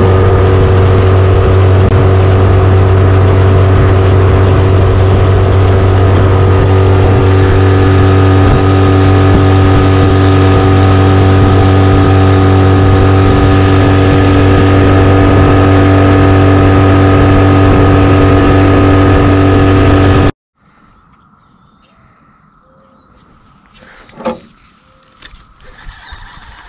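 Small outboard motor running steadily at speed, a constant hum of engine tones with water and wind noise. It cuts off abruptly after about twenty seconds, leaving quiet with a single sharp click a few seconds later.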